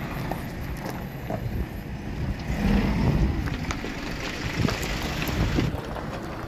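Low, uneven outdoor rumble of wind and vehicle noise among parked trucks, with a few light knocks and a louder swell in the middle.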